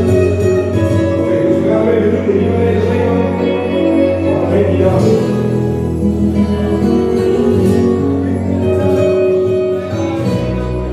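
Music with a singing voice and a bass line that changes note at the start and again near the end.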